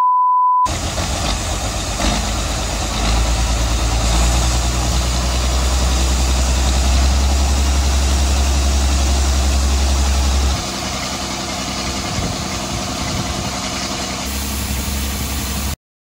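A short steady test-tone beep, then a tractor engine running a grain auger while corn is unloaded from a grain truck. The low engine hum drops about ten seconds in, and the sound cuts off just before the end.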